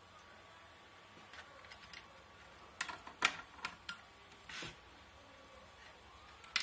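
Handling noise from a metal amplifier cabinet and its wiring: a cluster of sharp clicks and light knocks about three seconds in, a brief rustle a little later, and another click near the end.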